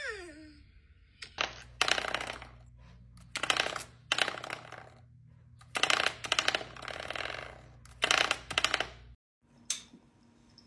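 A spring door stopper twanged over and over by a dog's paw, about six times: each flick sets off a loud, buzzing metallic rattle that dies away over about a second.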